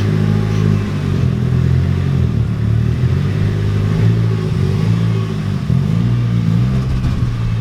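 Nissan Silvia S15's SR20 four-cylinder engine running, its pitch wavering up and down with engine speed as the car is driven on its newly fitted clutch, flywheel and six-speed gearbox.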